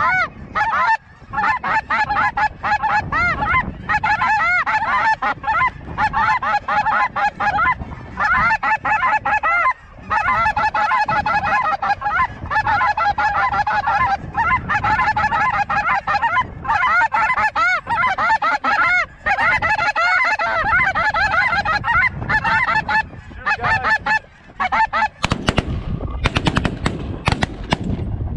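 A huge flock of geese calling, a dense chorus of many overlapping honks and yelps. Near the end, a rapid volley of shotgun shots breaks out over the calling.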